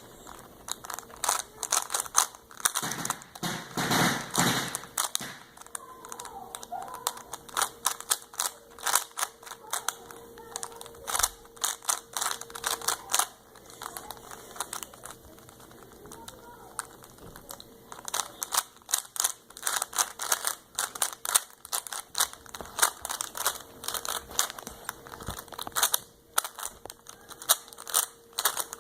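Rapid, irregular plastic clicking and clacking of a D-FantiX YJ Guanlong 3x3 speed cube being turned by hand. There is a louder rustle about four seconds in.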